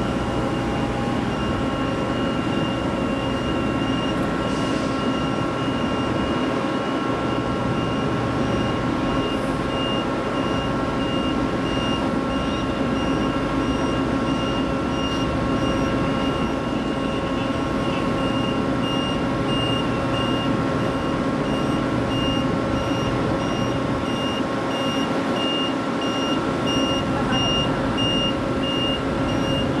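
Ship's crane machinery running with a steady humming drone while lowering a heavy load, and a high-pitched warning beeper sounding over and over at an even pace.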